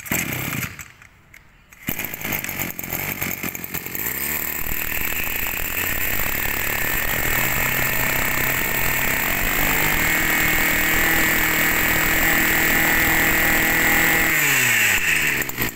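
Maruyama 23cc two-stroke brush cutter engine being started: a short burst of firing, then it catches about two seconds in. It revs up around four seconds in and runs at high speed, steady, then drops back toward idle near the end.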